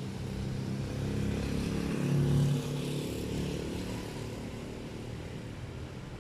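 An engine running steadily, growing louder to a peak about two and a half seconds in and then fading away, as a vehicle going past would.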